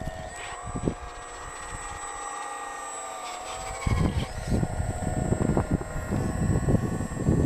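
Hydraulic pump of a radio-controlled Liebherr 946 model excavator whining steadily, its pitch bending as the boom and bucket move. From about four seconds in, wind buffets the microphone in loud gusts under the whine.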